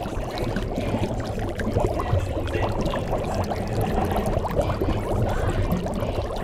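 Running water, pouring steadily without a break.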